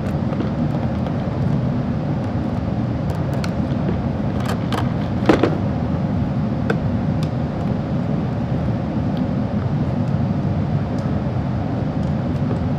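A steady low rumble of background noise, with scattered clicks and knocks of hard plastic as a block-off plug is worked into a plastic airbox. The sharpest knock comes about five seconds in.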